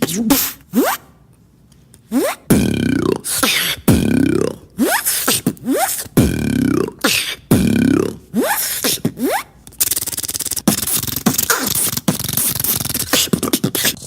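A beatboxer making vocal sound effects: after a short pause, a repeating pattern of swooping, sliding pitch sweeps with sharp hits, then a fast buzzing roll over the last few seconds.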